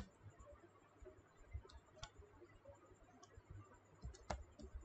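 A few faint, scattered clicks of computer keys during typing, with one sharper click about four seconds in; otherwise near silence.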